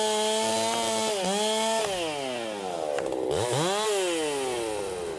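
Gas chainsaw running at high revs. After about two seconds the engine speed falls away, is blipped up once briefly, then falls again toward idle.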